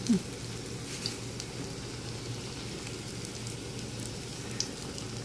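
Hot oil sizzling steadily as crumb-coated potato balls deep-fry in a pan, with a couple of faint ticks.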